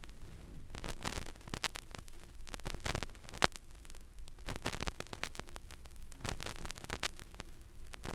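Vinyl record surface noise from the stylus riding the lead-in groove on an old turntable: irregular crackles and pops, with one louder pop about three and a half seconds in, over a low hum.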